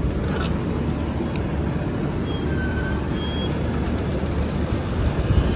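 Passenger train running, heard at an open coach door: a steady low rumble of wheels on the rails mixed with rushing air, with a few faint, short high squeals in the middle.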